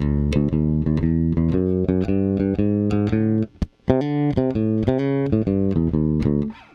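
Electric jazz bass played through its original bridge pickup soloed: a quick line of plucked notes with a short break about halfway through.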